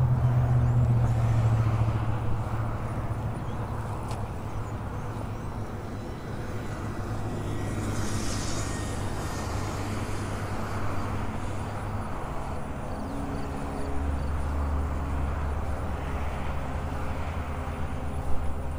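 Steady low rumble of wind and rolling noise while riding a bicycle, with a low hum underneath that drops lower about two-thirds of the way through.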